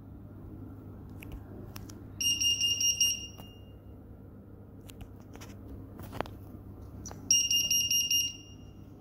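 B. Braun Perfusor compact S syringe pump sounding its error alarm: a high-pitched electronic alarm tone in two bursts of about a second each, some five seconds apart. A faint click comes between them.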